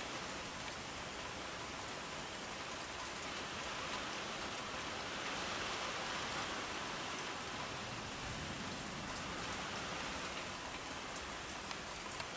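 Steady rain falling, an even hiss with no breaks, a little louder in the middle.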